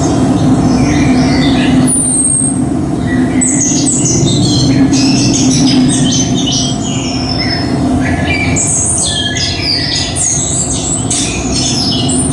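A dense chorus of chirping bird calls, many short quick notes over a steady low hum, likely a recorded track played over a loudspeaker.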